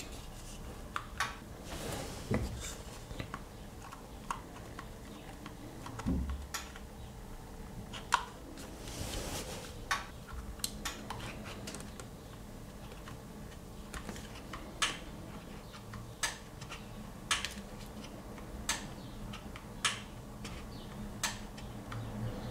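Plastic buttons of a handheld SilverCrest remote control clicking as they are pressed again and again, a short sharp click every second or so, with some handling rustle.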